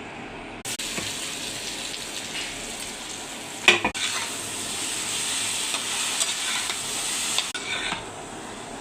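Food sizzling in a hot pan while being stirred, with one sharp knock of a utensil against the pan about four seconds in. The sizzle starts suddenly near the start and stops suddenly near the end.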